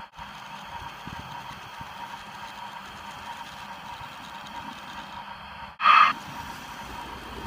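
Small OO gauge 'pug' tank locomotive running over model railway points, a steady low running noise, with a short, loud, high-pitched sound about six seconds in.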